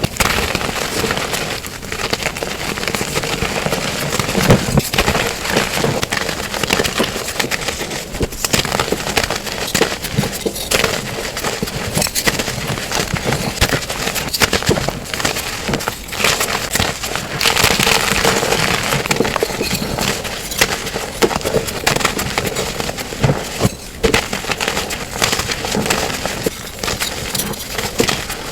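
Blocks of plain gym chalk and reformed chalk being crushed and crumbled: a dense, continuous crunching and crackling.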